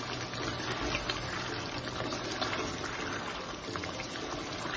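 Chicken karahi gravy bubbling in a nonstick pan while a spatula stirs it, a steady wet bubbling with small scrapes and clicks of the spatula. Only a little water is left in the gravy and the oil is starting to separate.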